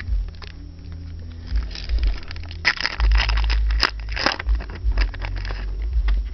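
Trading cards and their foil pack wrapper being handled: crackling, crinkling and scraping, busiest in the middle, over a low handling rumble.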